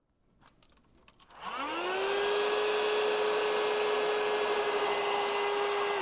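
A few light clicks, then an electric heat gun switched on about a second and a half in: its fan motor whine rises in pitch and settles into a steady blowing hiss, beginning to wind down right at the end. The hot air is shrinking a solder sleeve until its solder ring melts.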